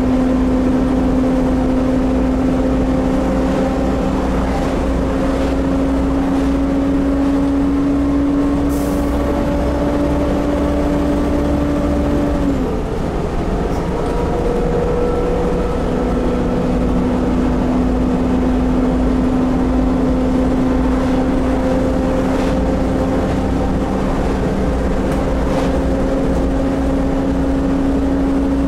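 Volvo B7TL double-decker bus under way, heard from the upper deck: its D7C six-cylinder diesel and drivetrain give a low rumble with a steady whine that climbs slowly in pitch. About twelve seconds in the whine drops away sharply, then returns a few seconds later and climbs again.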